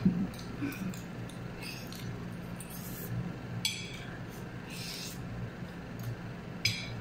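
People eating fried instant noodles: short slurps, chewing and the odd clink of a fork or spoon against a plate, over a steady low hum.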